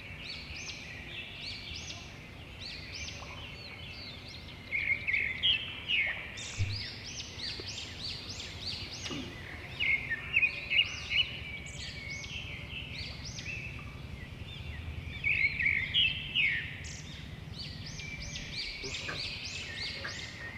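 Small birds chirping in quick runs of short, high notes, with several louder bouts.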